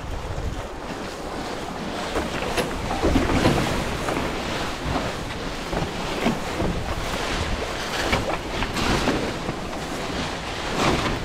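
Wind across the microphone and waves washing along the hull of a sailing trimaran, with irregular swishing and rustling as the spinnaker halyard is hauled hand over hand and the sail goes up.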